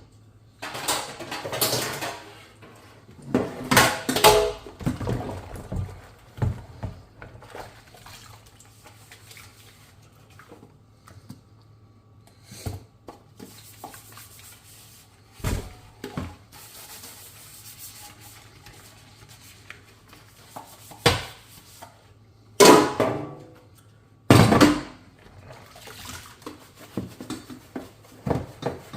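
Dishes being handled while washing up: irregular clinks and clatters of dishes and utensils, with short bursts of water and quieter handling in between.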